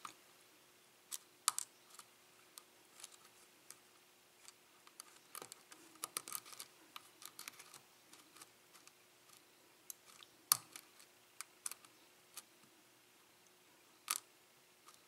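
Lock pick ticking and scraping against the pins inside a six-pin Assa-Abloy SCD pin-tumbler lock as the pins are worked and set under tension: faint irregular clicks, with a few sharper ones scattered through, over a faint steady hum.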